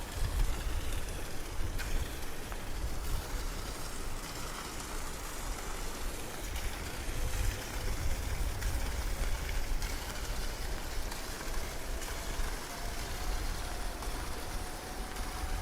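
Steady rain falling, heard as an even hiss, over a deep low rumble. In the second half a faint whine slowly rises in pitch.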